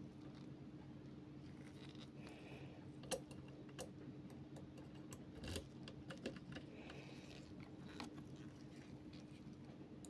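A handful of faint, sharp metallic clicks and small scrapes as a key-shaped pick is handled and pushed into the keyway of a brass Titan K5 euro cylinder lock, over a low steady hum.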